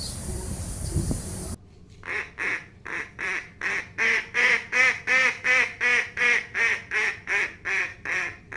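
Outdoor background noise, then from about a second and a half in, a duck quacking in a long regular series of about eighteen quacks, roughly three a second, that swell in loudness and then taper off.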